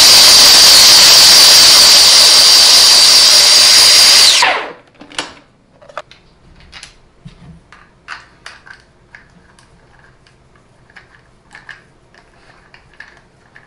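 Electric food processor running at full speed, mixing a stiff cracker dough with shredded cheddar, with a steady high whine; it switches off about four and a half seconds in and winds down. Faint scattered clicks and taps follow.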